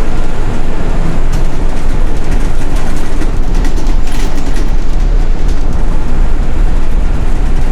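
City bus driving, heard from inside: a loud, steady low rumble of engine and road noise, with short rattles about halfway through.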